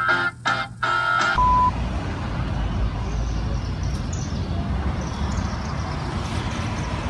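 Music ends abruptly about a second and a half in, followed by a short beep and then steady outdoor background noise with a heavy low rumble and faint high chirps.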